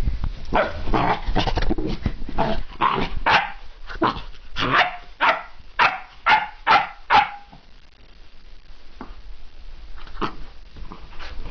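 Puppy barking in a rapid string of short barks, loudest about halfway through, then thinning out to a few scattered barks; the puppy is excited.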